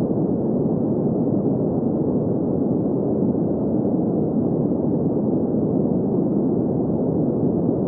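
Steady sleep noise, like a constant hiss or rush with no highs, centred in the low-middle range: green noise. It holds unchanged throughout.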